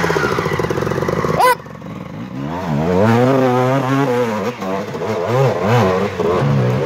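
Dirt bike engine at close range, loud and pulsing, dropping away about a second and a half in. Then a dirt bike engine revving up and down over and over, its pitch rising and falling, as the rider claws up a steep muddy slope.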